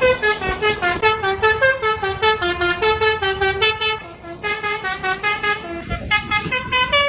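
Indonesian 'telolet' musical bus horn playing a fast melody of short, bright horn notes, several a second. It thins out briefly about four seconds in and breaks off for a moment near six seconds before going on.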